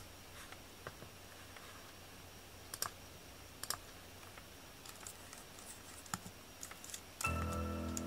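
Scattered clicks of computer keyboard keys and a mouse, a few at a time with pauses between. About seven seconds in, a sustained musical note with several steady pitches starts up, as music begins to play.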